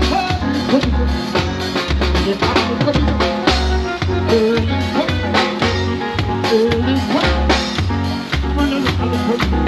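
A Jamaican nine-night band playing live, amplified music: a steady pulsing bass beat with a voice singing over it.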